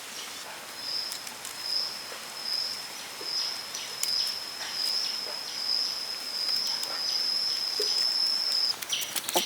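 A high, steady insect trill that holds one pitch for about eight seconds and stops near the end, over faint scattered clicks and scrapes.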